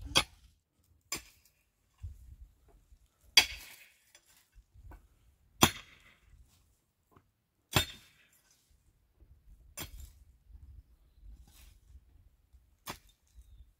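Digging in stony soil: a hand tool striking earth and stones in sharp, separate blows about every two seconds, some followed by a short scraping rasp.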